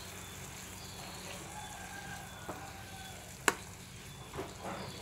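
Beef and vegetables stir-frying in a nonstick frying pan, a steady sizzle, with one sharp knock of the stirring utensil against the pan about three and a half seconds in.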